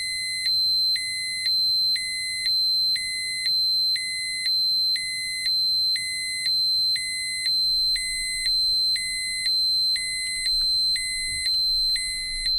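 Dosimeter alarm: a steady high electronic tone with a lower beep pulsing on and off about once a second, the warning that a set radiation dose or dose-rate limit has been passed.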